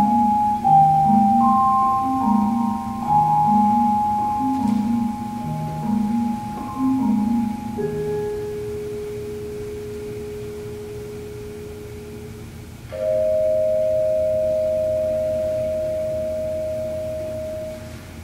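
Marimba and vibraphone duet closing a piece. A low figure repeats about once a second under long ringing vibraphone notes. About eight seconds in the music thins to a single held note, and about thirteen seconds in a final two-note chord is struck and rings on, fading, until it is damped just before the end.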